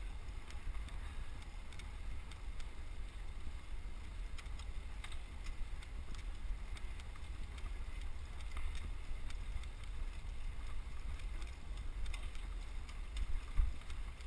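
Wind noise on a helmet-mounted GoPro HD Hero microphone while riding a road bike: a steady low rumble, with faint scattered ticks.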